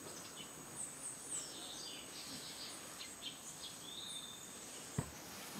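Rainforest ambience: a steady high insect drone with many short bird chirps and whistles scattered through it. A single sharp tap sounds about five seconds in.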